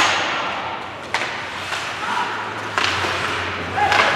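Sharp knocks from game play, about five in four seconds, each ringing briefly as in a large hall, over a steady background haze.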